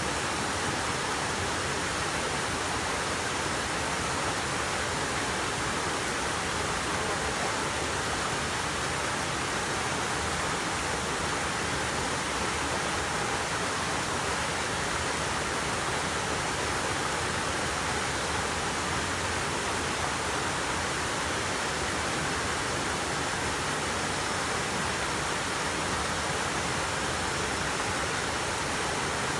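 Waterfall rushing steadily, an unbroken roar of falling water.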